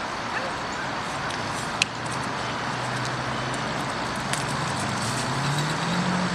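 Steady road traffic noise, with a motor vehicle's engine growing louder and rising in pitch in the second half. One sharp click about two seconds in.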